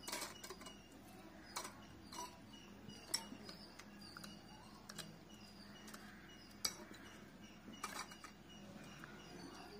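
Small wire whisk clinking and scraping against a ceramic bowl while beating eggs, in irregular sharp taps.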